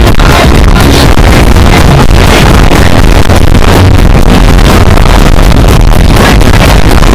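Fireworks show soundtrack blasting from nearby loudspeakers, loud and distorted, its bass overloading the microphone, with fireworks going off in the mix.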